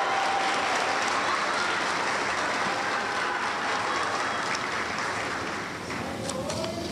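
Audience applauding, the clapping easing off a little near the end.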